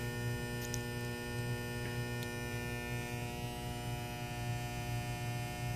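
Steady electrical mains hum, a low buzz with many even overtones, unchanging throughout.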